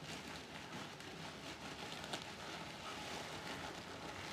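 Clear plastic bag crinkling and rustling as hands break up and handle dry vermicelli inside it, with a sharp click about two seconds in.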